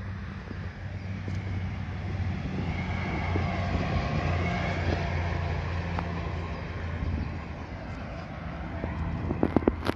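Passenger train passing in the distance, its running noise swelling to a peak and then fading away. A few sharp knocks come near the end.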